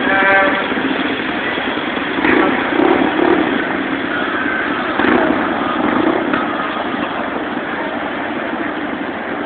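Engines of passing parade vehicles running and revving over steady street noise, with a brief pitched sound right at the start.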